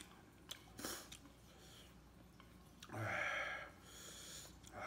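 A man sniffing and breathing hard through his nose from the heat of very spicy noodles. A loud breathy sniff comes about three seconds in and another at the end, with a few light clicks before them.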